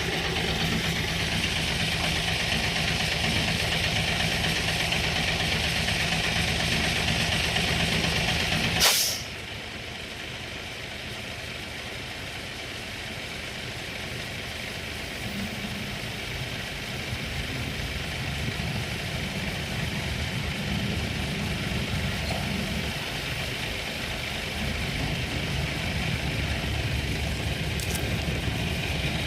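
Heavy diesel engine of crane or heavy equipment running steadily, with a short sharp hiss like an air release about nine seconds in, after which the engine runs quieter and then slowly builds again.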